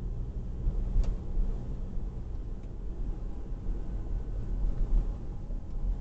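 Road and engine noise inside a moving car's cabin: a steady low rumble, with one light click about a second in.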